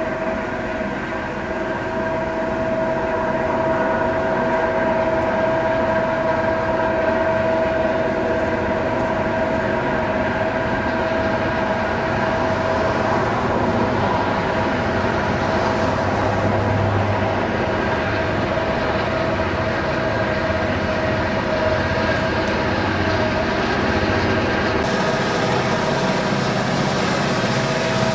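Diesel-electric locomotive working at high throttle: a loud, steady engine drone with a steady high whine on top. The sound changes abruptly a few seconds before the end.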